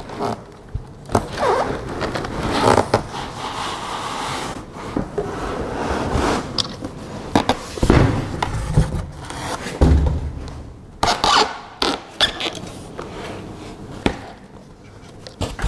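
Cardboard carton and foam packing scraping and rubbing as a large foam-packed printer part is worked out of the box, with scattered knocks and two dull thumps about eight and ten seconds in.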